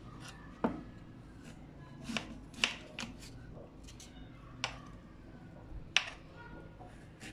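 Kitchen knife cutting raw peeled taro root on a wooden cutting board, the blade knocking the board in about six sharp, irregularly spaced clicks.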